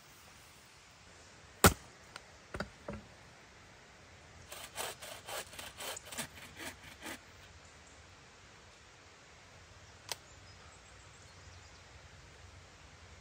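Wood being worked by hand: one sharp knock, a few lighter knocks, then a quick run of about ten strokes, close to four a second, like a hand saw cutting. One more click comes near the end, over a steady hiss.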